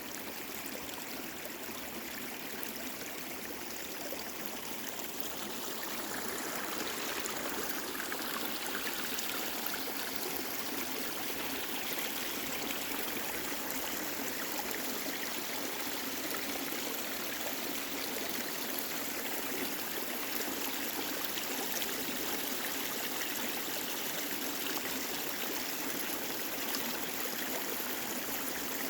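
Mountain valley stream babbling and trickling in a steady flow, a little louder from about six seconds in.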